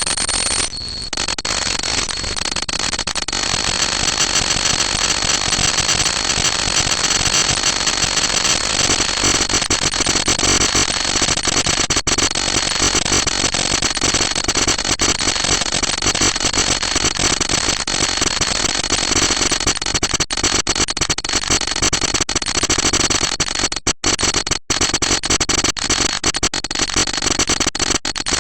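A loud, continuous crackling hiss like heavy static, with a thin steady high whistle running through it. It cuts out briefly twice near the end.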